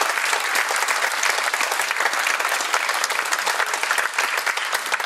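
Concert audience applauding steadily, a dense patter of many hands clapping.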